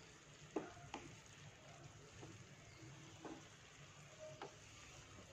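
Faint scrapes and light knocks of a spoon gently stirring sweet zarda rice in a kadhai, about five strokes at uneven intervals, over a faint steady hiss from the pan.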